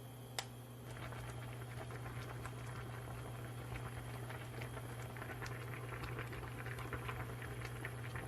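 Food cooking on a stovetop, a dense steady crackle of small pops like sizzling or bubbling, starting about a second in. A single sharp click comes just before it, and a steady low hum runs underneath.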